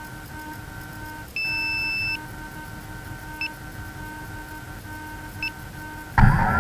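The tricopter's electronics beep: one long beep, then two short beeps a couple of seconds apart, over a faint steady whine. Near the end its brushless motors suddenly spin up with a loud whine that wavers in pitch.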